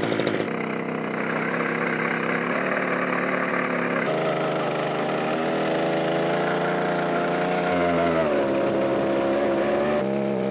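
Petrol-powered ice auger's small engine running steadily as the auger bores down through sea ice. The engine note shifts several times and dips in pitch about eight seconds in.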